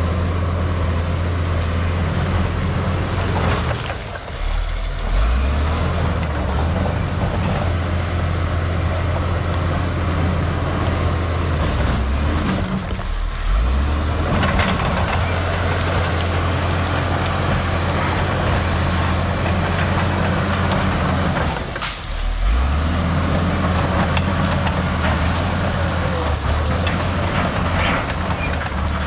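Case crawler dozer's diesel engine running hard as the blade pushes dirt and brush. The engine note dips and drops in pitch briefly three times, about four, thirteen and twenty-two seconds in, then comes back up.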